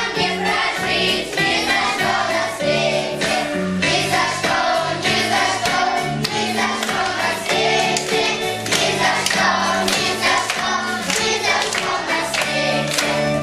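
Upbeat song with instrumental backing and a steady beat, sung by a choir.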